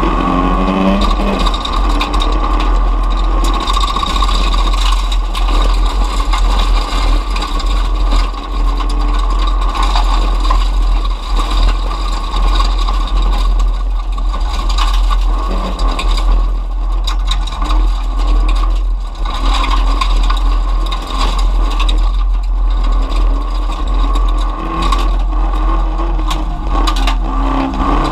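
In-cabin sound of a folkrace car racing on a gravel track: the engine running hard with its pitch rising and falling through the corners, over a heavy low rumble, with rattles and scrapes from the bare cabin and the gravel.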